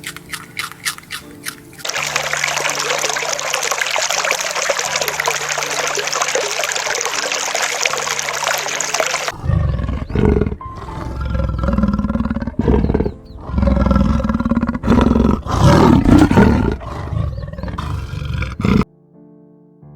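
A steady hiss lasting several seconds, then a large animal roaring in a run of deep, loud calls for about nine seconds, cutting off suddenly near the end.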